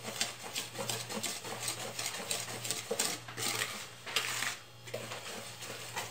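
Metal wire whisk beating cake batter by hand in a plastic bowl: quick rhythmic clicking and scraping of the wires against the bowl, about four strokes a second, with a brief pause a little before the end.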